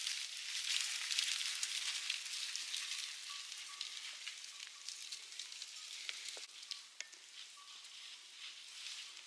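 Sheep and goats moving and grazing through dry grass and brush: a dense, crackling rustle of stems and twigs, loudest in the first few seconds and fading toward the end.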